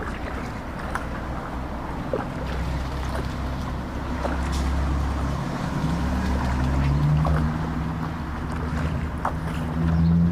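Canoe-trip sound on the water: wind rumbling on the microphone, with a low steady hum that rises a little about halfway through and scattered light knocks.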